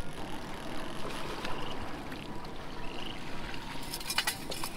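Water splashing and trickling at the side of the boat as a hooked fish is brought to the landing net, with a few sharp knocks about four seconds in.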